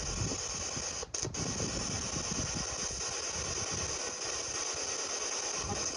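Steady hiss with a fast, choppy ratchet-like crackle underneath, which cuts out briefly about a second in.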